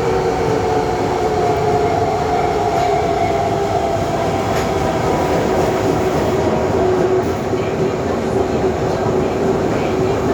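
Tanimachi Line 22 series subway car running, with a steady motor whine that slowly drops in pitch over road and rail noise. A few faint rail-joint clicks come through.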